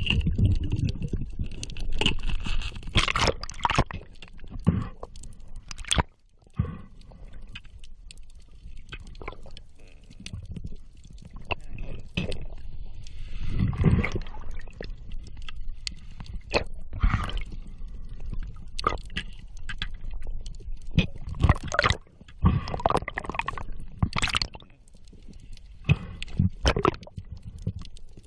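Knocks, clicks and scrapes with gurgling, heard through an underwater camera, as a diver handles the camera and works among seabed rocks. The knocks come irregularly throughout, over a low rumble, and are densest about 13 seconds in and again from about 21 to 25 seconds.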